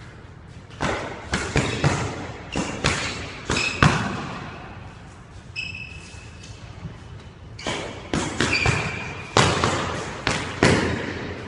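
Boxing gloves smacking as two people spar: two flurries of sharp punches, about eight hits each, a few seconds apart, echoing off the hard walls of a squash court. Sneakers squeak briefly on the wooden floor between hits.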